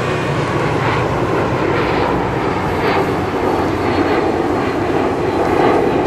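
Jet noise from a JASDF U-125A search-and-rescue jet's two rear-mounted turbofan engines as it banks overhead: a loud, steady rushing.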